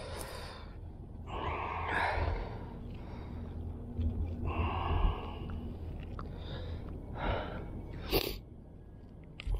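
A person breathing audibly close to the microphone, six or seven separate breaths, over a low rumble, with a sharp click about eight seconds in.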